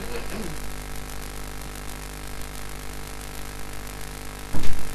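A steady electrical hum and buzz made of several constant tones. About four and a half seconds in, a brief loud noise cuts across it.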